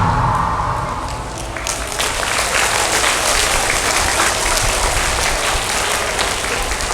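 Audience applauding. The tail of the dance music fades out first, and the clapping swells up about a second and a half in.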